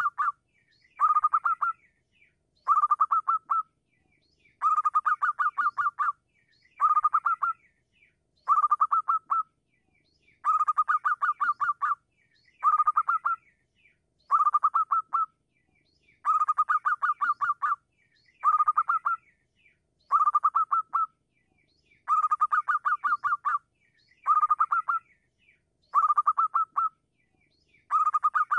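Zebra dove (perkutut) cooing: the same phrase of rapid staccato coo notes over and over, each phrase about a second long and coming roughly every two seconds.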